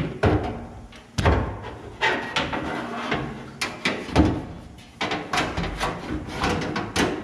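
A sheet-steel trunk floor pan clanking and scraping as it is set down and shifted into place on the car's frame rails: a string of sharp metallic knocks with short ringing, the loudest about four seconds in.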